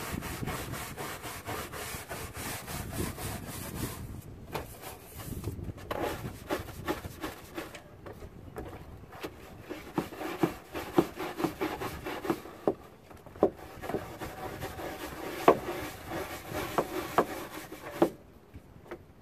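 Stiff deck brush scrubbing the fibreglass cockpit floor of a sailboat to clear lichen grime. Quick, even back-and-forth strokes come first, then slower scraping strokes with sharp knocks of the brush head, and the scrubbing stops near the end.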